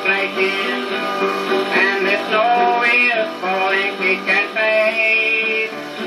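Old-time music played from a 1920s acoustic-era 78 rpm shellac record on a phonograph: harmonica melody over strummed guitar, with a narrow, band-limited tone.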